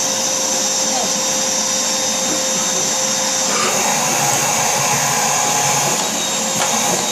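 Vacuum cleaner running steadily with a high whine; its pitch shifts slightly about three and a half seconds in.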